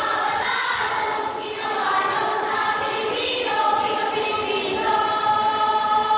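A group of schoolchildren voicing a Filipino choral recitation (sabayang pagbigkas) in unison, drawing out long held notes.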